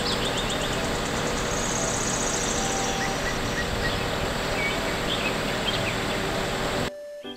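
Truck-mounted aerial work platform running steadily as its boom raises the basket, with faint birds chirping. The sound cuts off shortly before the end.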